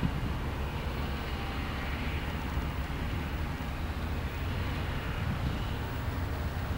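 Diesel engines of a Caterpillar 773G rigid dump truck and a Caterpillar bulldozer running together, a steady low rumble, while the truck raises its bed to tip a load of earth.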